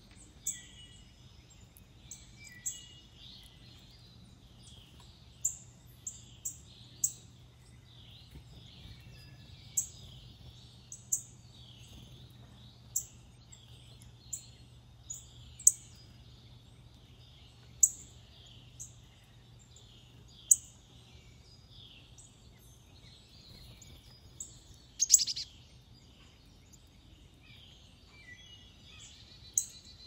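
Wild songbirds calling and singing: a steady background of twittering song, cut through by frequent sharp, high, very short chip notes at irregular intervals, with one louder burst of calling about 25 seconds in. A faint steady low hum runs underneath.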